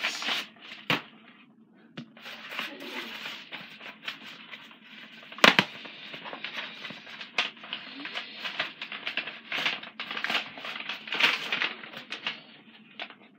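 A mail package being opened by hand: irregular rustling, crinkling and tearing of packaging, with a sharp snap about five and a half seconds in.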